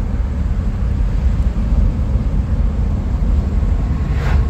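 Car driving along a highway: a steady low road rumble, with a brief whoosh as an oncoming minivan passes about four seconds in.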